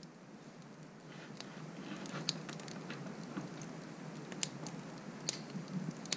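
A wood fire crackling in a wood stove's firebox: irregular sharp pops and snaps, a few louder than the rest, over a steady low background.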